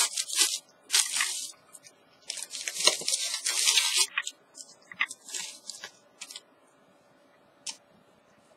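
A plastic bag crinkling and rustling in spurts as hands rummage in it and pull string free, busiest in the first four seconds and dying away after about six.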